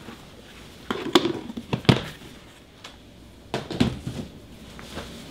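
Several short, dull knocks and thuds of kitchen items being handled and set down, in three clusters about one, two and four seconds in.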